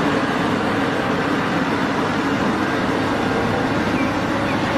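Large diesel engine of a Cat 6015B hydraulic mining excavator running steadily under load while it dumps sand into a dump truck.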